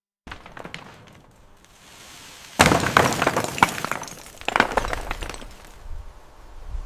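Something breaking and crashing down: a sudden loud shattering crash with many sharp impacts about two and a half seconds in, then a second, smaller cluster of breaking impacts a second or so later.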